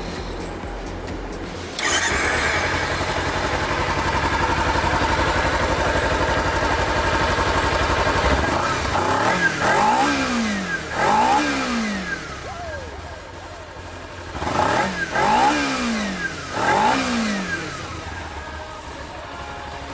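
Kawasaki Ninja 300 parallel-twin through a Yoshimura full-system exhaust, idling and getting suddenly louder about two seconds in. Near the middle and again later it is revved in two pairs of quick throttle blips, each rising and falling back to idle.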